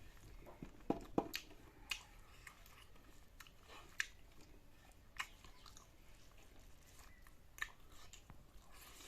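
A person chewing and eating with the mouth close to the microphone, soft food with a few sharp mouth clicks and smacks scattered through, the loudest about a second in.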